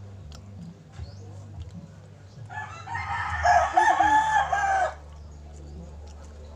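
A rooster crows once, starting about two and a half seconds in. The crow lasts about two seconds and has several rising-and-falling syllables. A low steady hum runs underneath.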